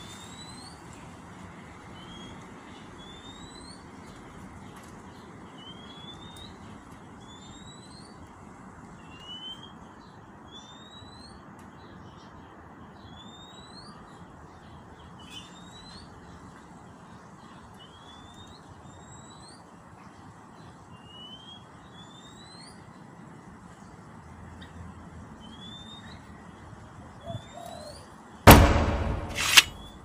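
A murai songbird calling: one short rising whistle, repeated about once a second. Near the end a sudden loud noise cuts in twice.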